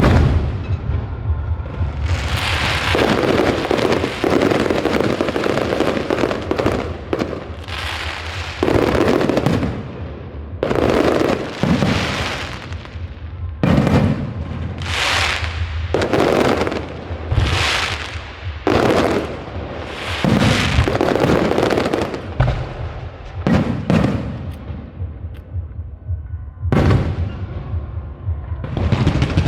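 Aerial fireworks bursting one after another, roughly one every one to two seconds, with crackling in between, over a steady low hum.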